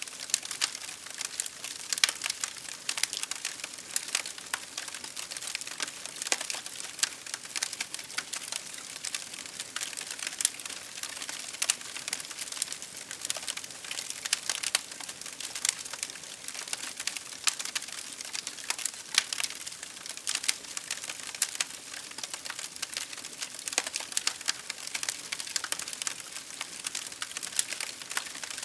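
Campfire of burning firewood crackling: a dense, irregular stream of sharp pops and snaps, with a few louder pops standing out.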